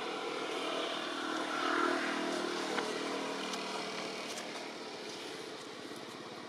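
A motor vehicle passing by, growing louder to a peak about two seconds in and then fading away.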